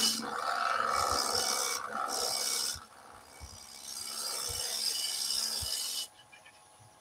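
Bowl gouge cutting a wooden newel post spinning on a lathe: a rasping, scraping cut in three passes, the last one longest, stopping about six seconds in. This is a light finishing cut, cleaning up the last detail of the turning.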